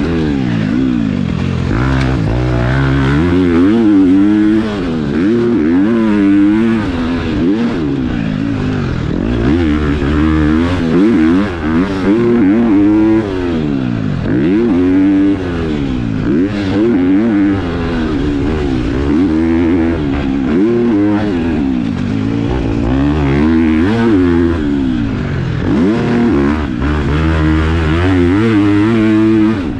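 A KTM four-stroke single-cylinder motocross bike being ridden hard around a track. The engine revs up and falls back every second or two as the throttle is opened and closed through corners and jumps.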